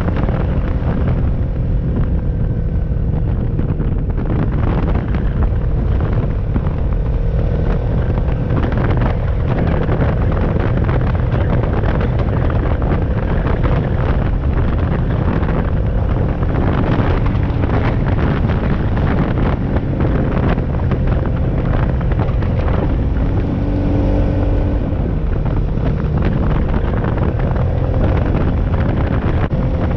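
Four-wheeler (ATV) engine running steadily while riding, its pitch wavering slightly with the throttle, with wind noise on the microphone.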